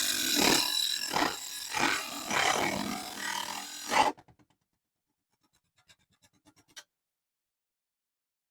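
Mini table saw's blade cutting a small aluminium channel with the saw run at 12 volts: a rasping noise that surges and eases unevenly about twice a second, then stops about four seconds in, followed by a few faint clicks.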